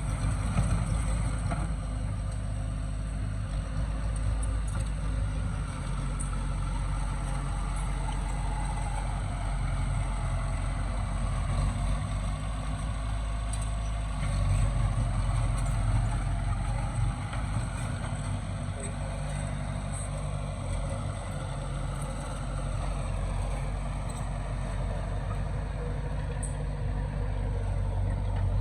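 Heavy diesel engines of a dump truck and bulldozer running steadily, with small rises and falls in level.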